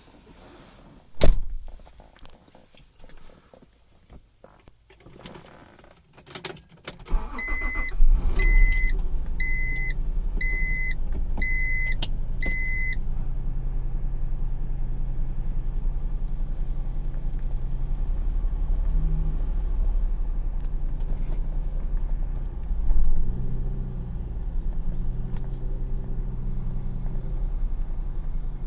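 A loud thump about a second in and small clicks and key sounds, then about seven seconds in the Honda NSX's V6 cranks and catches on a cold start and settles into a steady idle. A dashboard chime beeps evenly about six times as it starts, and the engine note swells briefly near the end.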